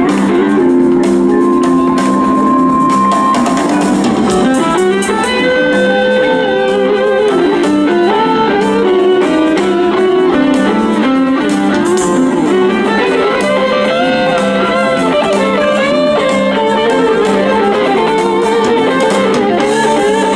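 Southern rock band playing live: electric guitar lead lines with long held notes and bends over drums and a rhythm guitar.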